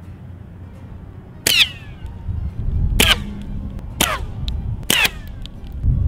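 Slingshot-fired rocks ricocheting off pavement and flying past, four times in a row: each starts with a sharp snap and then a whistling buzz that falls in pitch as the spinning, tumbling rock goes by. The buzz comes from the rough, tumbling rock stirring up turbulence in the air, the same thing that makes ricocheting bullets scream.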